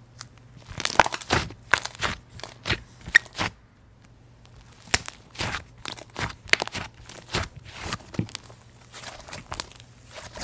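Hands kneading, poking and stretching a soft clay slime mixed with instant snow, making quick crackling pops and small tearing sounds. The crackles come in two runs with a brief pause a little before halfway.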